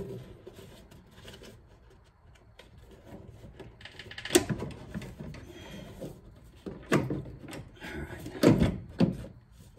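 A Dodge Challenger Hellcat's plastic air box being worked down into the engine bay by hand: irregular plastic knocks, clunks and scrapes as it is pushed and shifted into place, the sharpest knocks about four seconds in and near the end.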